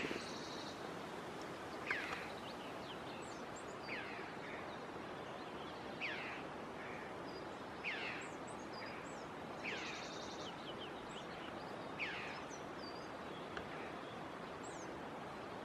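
A bird calling: a short falling note repeated about every two seconds, with fainter high chirps between, over a steady background hiss.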